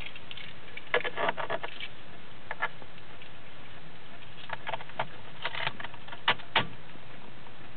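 Irregular sharp clicks from a 2006 Honda Civic as it is tried for a start, some single and some in quick clusters, with no engine cranking or running.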